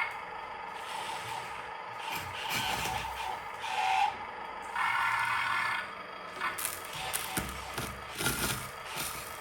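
Small electric motors and gearboxes of RC construction machines whining in stretches that start and stop, with clicks and scraping of gravel.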